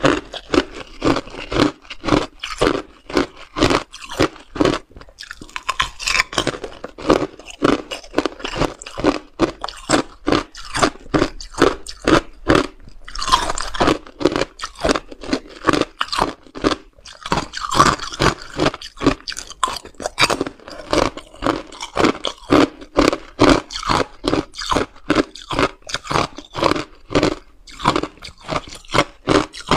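Crunching and chewing of clear ice with frozen pomegranate arils inside, picked up close on a clip-on microphone. It is a fast, even run of hard crunches, about three a second.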